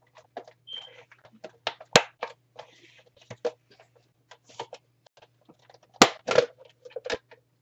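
Hard plastic clicking and knocking as a Ninja blender pitcher and its lid are handled and unlatched. The sharpest snaps come about two seconds in and again around six to seven seconds in.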